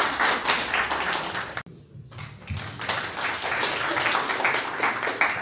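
Small audience applauding, a dense patter of many hands clapping, broken off for an instant about a second and a half in, then going on.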